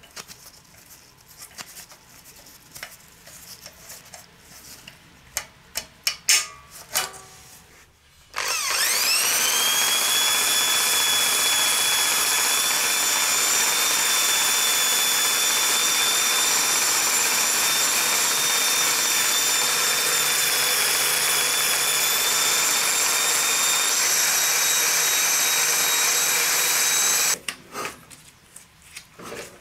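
Light metal clicks and clatter from fitting the valves with a valve spring compressor, then a cordless drill spins up with a rising whine and runs steadily for about nineteen seconds, scrubbing carbon off the piston top and block deck of a Briggs & Stratton engine, before stopping shortly before the end.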